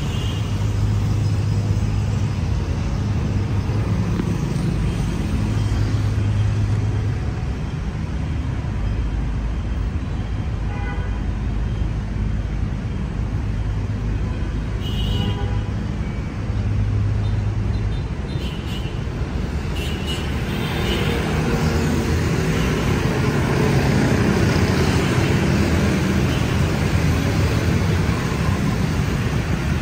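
Dense city street traffic of motor scooters and cars: a steady low engine rumble, with short horn toots about 11 and 15 seconds in. About two-thirds of the way through the traffic noise grows fuller and louder as a stream of scooters moves off.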